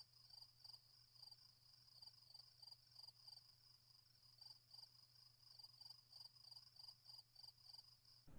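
Faint night chorus of insects: a steady high-pitched pulsing trill, with lower chirping calls repeating about three times a second, over a faint steady low hum.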